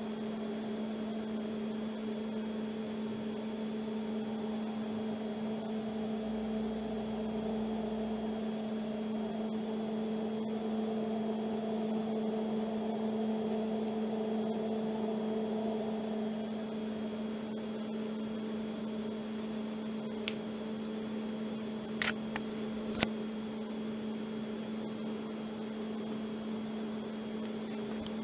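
Steady electrical hum with a faint high tone above it, broken by a few sharp clicks about three-quarters of the way through.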